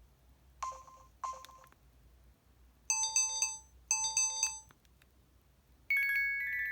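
Built-in electronic sound effects of an EVER EV-W420 mobile phone: two short blips about half a second apart, then two bright chiming tones a second apart, and a held ringing tone that starts near the end.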